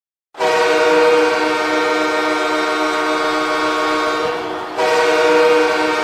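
Hockey arena goal horn sounding to signal a goal. One long blast starts just after the beginning, eases off, and a second long blast begins just under five seconds in.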